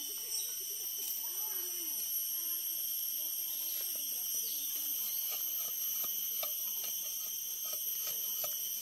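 Steady high-pitched insect chorus, several droning tones held without a break, with faint distant voices underneath and a few light clicks in the second half.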